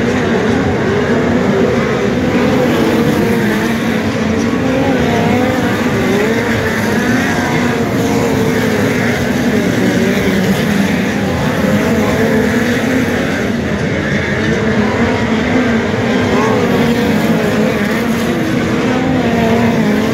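Several race car engines running together on a dirt speedway oval, their pitches wavering up and down as the cars lap. The sound is loud and continuous.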